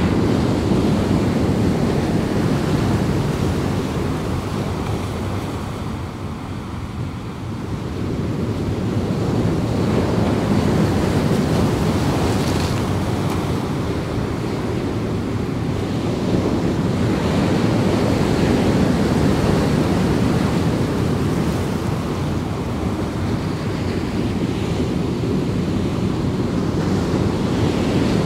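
Steady rushing wind noise buffeting the onboard microphone of a DJI Avata FPV drone in flight. It eases briefly about a quarter of the way in, then builds back.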